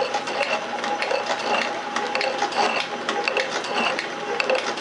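Metal shaper running under power: its ram strokes back and forth, with repeated mechanical clicks and knocks over a faint steady hum, as the tool planes a steel workpiece held in the vise.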